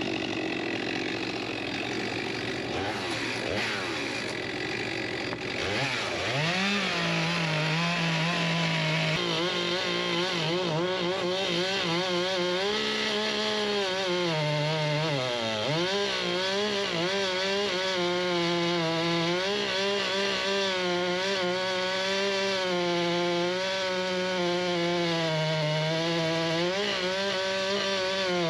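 Two-stroke chainsaw cutting through a red cedar log: it revs up about six seconds in and runs at high throttle, its pitch sagging and recovering again and again as the chain bogs down in the cut.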